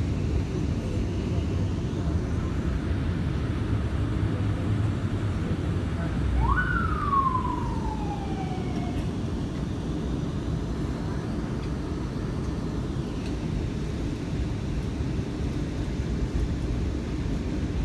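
R179 subway car running, a steady low rumble of wheels on track heard from inside the car. About six seconds in, a brief whine jumps up in pitch and then slides down over two or three seconds.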